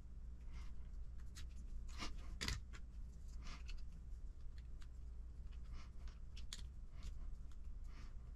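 Light, scattered clicks and taps of hard plastic RC truck suspension arms and small parts being handled and fitted together by hand, over a steady low hum.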